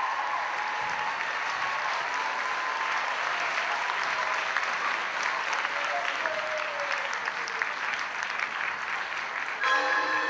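Theatre audience applauding steadily, with a few voices calling out over the clapping. Music starts just before the end.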